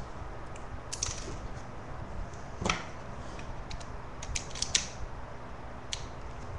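Scattered sharp clicks and small taps, about six of them, the loudest about two and a half seconds in, from handling a miniature toy pistol.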